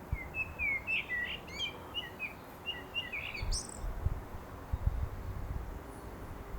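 Common blackbird singing: a run of fluty, warbled phrases that ends in a high, squeaky twitter about halfway through, then a pause. A few low bumps come in the second half.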